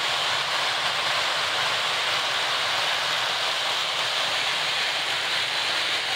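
Steady noise of a large crowd, unbroken and even in level.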